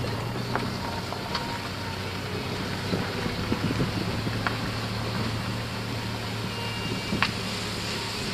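Motor vehicle driving: a steady low engine hum over road noise, with a few short clicks and rattles, the sharpest about seven seconds in.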